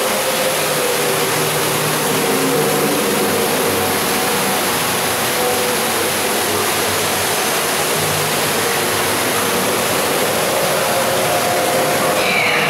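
Steady rush of falling water, with faint steady low tones running beneath it.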